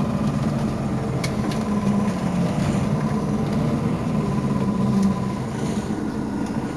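Mercedes-Benz Citaro facelift city bus idling steadily at a standstill: a low, even engine hum with a faint steady whine above it.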